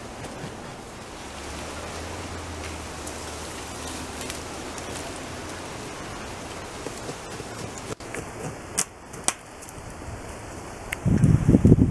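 American beaver gnawing through the trunk of a small tree: a steady scratchy scraping of incisors on wood, with a few sharp clicks and then a loud run of rapid crunching bites near the end.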